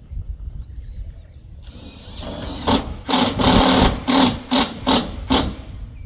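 Power drill/driver running in a series of short trigger pulls, likely driving a screw into metal siding: one longer run then about four quick bursts.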